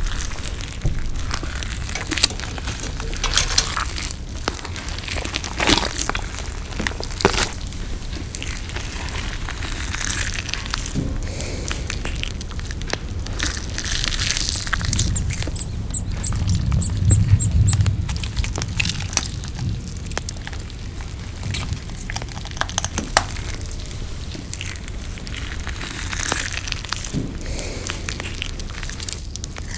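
Close-miked eating sounds: chewing and crunching with irregular crackling clicks and mouth noises, and a stretch of heavier, deeper chewing a little past halfway.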